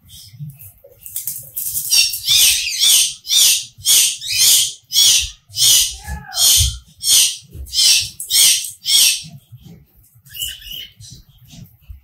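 Cockatiels giving a long run of harsh, rasping calls, about two to three a second, from about two seconds in until about nine seconds in, then a few softer calls near the end.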